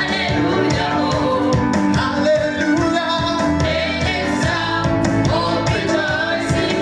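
Church worship music: voices singing over a band with a steady, regular beat.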